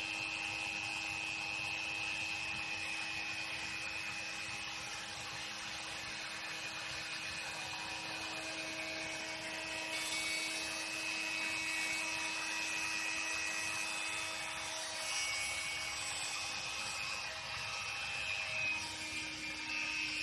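Dremel-type rotary tool spinning a milling bit through a flex-shaft extension mounted on a 3D printer's head, a steady whine with a low hum, as the cutter is lowered very slowly into corrugated plastic sheet; near the end the bit starts to bite into the plastic.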